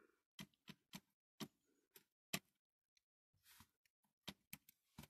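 Scattered small clicks and taps of a die-cast toy lorry, a Corgi Major Bedford machinery carrier, being handled and its moving parts worked, about nine in all, with a soft brief rustle midway.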